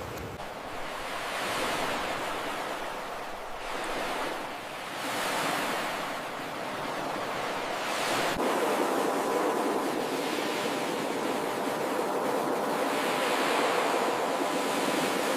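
Ocean surf: waves breaking and washing up a beach, the rushing noise swelling and easing every few seconds.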